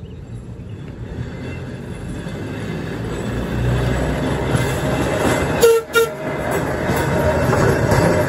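Pittsburgh streetcar rolling on the rails and passing close by, growing steadily louder. About five and a half seconds in it gives two short warning toots.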